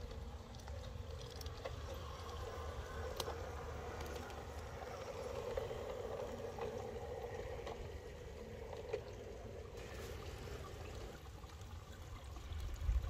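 LGB garden-railway model of a Corpet-Louvet 0-6-0 steam loco running with two coaches: its electric motor and gears hum, swelling loudest about five to seven seconds in as it passes close by, over a low steady rumble.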